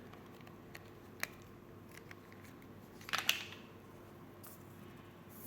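Hands handling small items at a bench: a few light clicks and ticks and a short rustle about three seconds in, which is the loudest moment. A faint steady hum sits underneath.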